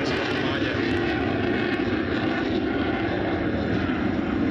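Single-engine Saab delta-wing fighter jet flying a display pass overhead: a steady, even jet noise.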